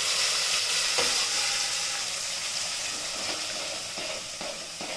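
Wet ground tomato-onion-garlic-ginger paste sizzling loudly in hot groundnut oil with tempered spices, the sizzle slowly dying down. A utensil knocks the pan about a second in, and stirring scrapes come toward the end.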